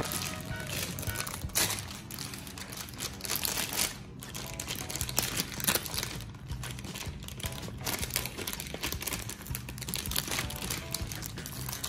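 Plastic crinkling and handling noises, irregular rustles and clicks, as food is packed into plastic containers and wrap.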